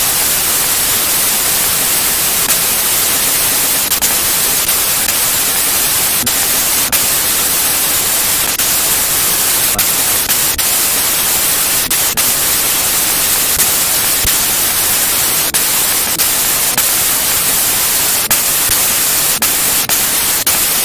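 Loud, steady static hiss with scattered faint clicks and crackles, without speech.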